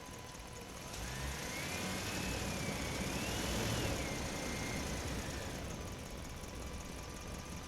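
A truck driving through a parking structure, its engine and tyres swelling louder from about a second in, peaking near the middle and easing off again. A thin high tone rises and falls over the top while it is loudest.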